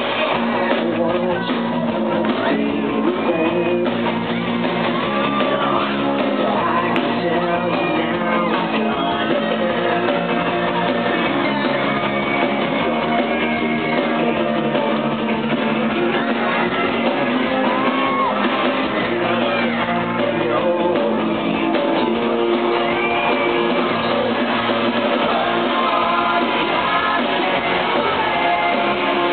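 Live pop-rock band playing: a male lead singer singing into a microphone over electric guitars and drums through the PA, with shouts from fans in the crowd.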